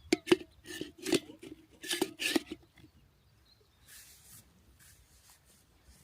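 Several sharp knocks and scrapes in quick succession over the first two and a half seconds, sharing a short ring, then a few soft rustles.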